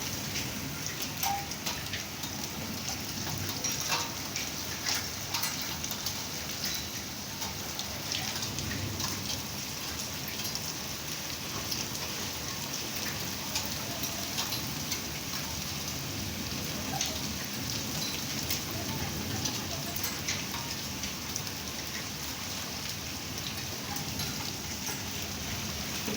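Heavy rain falling steadily, with many sharp drop impacts ticking through it.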